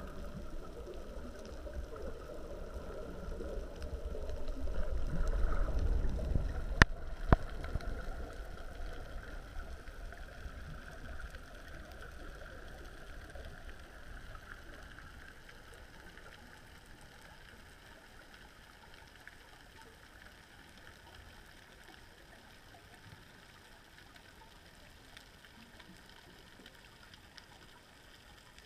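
Muffled rush of water against an underwater camera housing, swelling in the first several seconds, with two sharp clicks about seven seconds in, then fading to a faint hiss.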